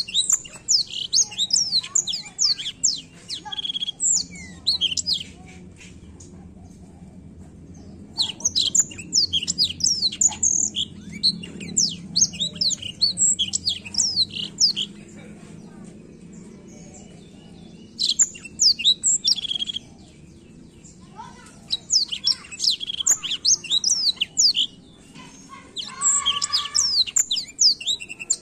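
A caged blackthroat (black-throated canary) singing its full rolling song: long runs of fast, sharp chirps and trills, broken by pauses of a few seconds.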